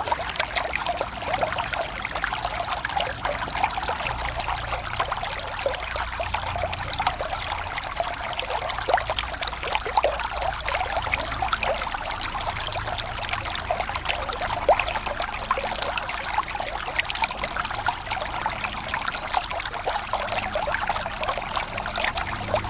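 River water flowing steadily: a continuous rush dense with small trickling splashes, over a faint low rumble.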